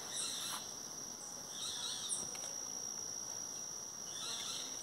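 Insects trilling in one steady high-pitched tone, with a few short, higher chirps and brief hissy patches over it.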